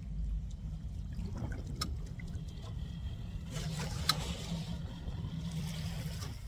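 Boat underway: a steady low motor rumble, with water splashing and hissing along the hull for the last few seconds.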